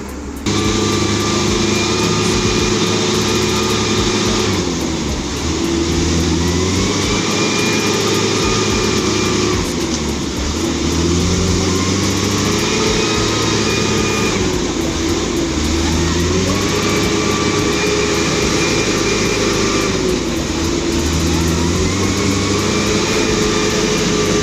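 Mitsubishi Canter truck's diesel engine revved hard over and over, its pitch climbing and dropping back about every three to four seconds, as the loaded truck strains to pull out of deep mud where its axle and differential had been stuck.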